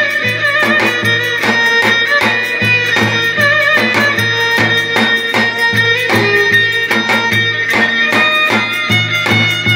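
Traditional Turkish folk dance music (oyun havası) of the Zonguldak Ereğli–Alaplı area: an ornamented high melody played over a steady, even beat.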